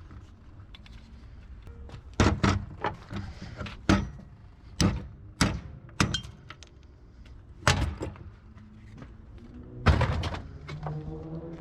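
Scrap appliance parts being handled and knocked about: a string of about eight sharp bangs and knocks, irregularly spaced, with quieter rattling between.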